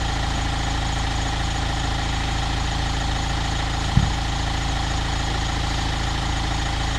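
Mahindra Thar's engine idling steadily, with a single short knock about four seconds in.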